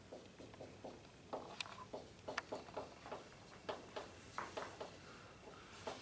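Dry-erase marker squeaking across a whiteboard as words are written: a faint, quick, uneven series of short squeaky strokes.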